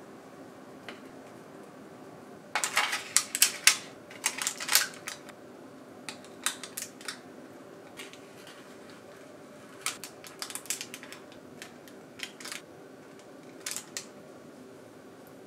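Slim metal tongs clicking and tapping as food is picked up and set into a bent-wood bento box. The clicks come in several short clusters, the loudest and densest a few seconds in.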